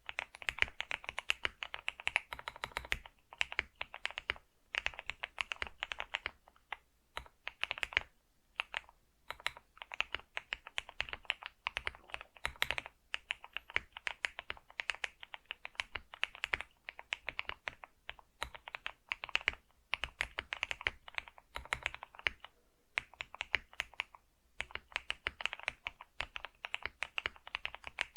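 Computer keyboard being typed on: fast runs of key clicks with brief pauses between bursts.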